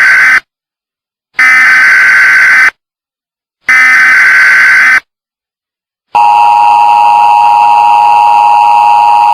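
Emergency Alert System tones: the end of one SAME header data burst and two more harsh, screeching bleeps of about a second each, a second apart. About six seconds in, the steady two-tone EAS attention signal starts and holds.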